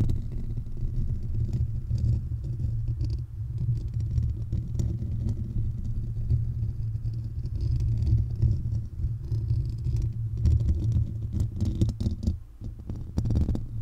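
Fingertips and fingernails scratching and rubbing directly on the metal mesh grille of a Blue Yeti condenser microphone: a dense, steady low rumble with scattered scratchy clicks, easing off briefly near the end.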